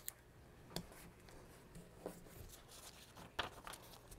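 Faint paper rustles and a few light taps as fingers press small pieces of tape down onto a folded paper strip laid on a sheet of paper.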